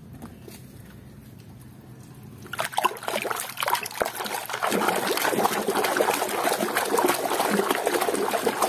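A hand swishing plastic toy animals around in a basin of water, splashing and sloshing with many small sharp splashes. The first two and a half seconds are quiet apart from faint clicks; then the splashing starts and goes on.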